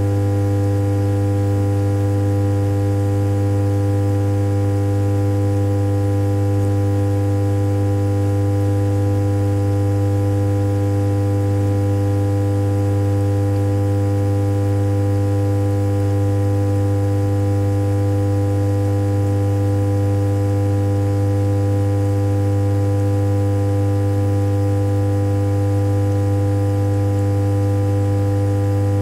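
Dishwasher running, giving a steady, unchanging low drone with a strong fundamental near 100 Hz and many overtones stacked above it.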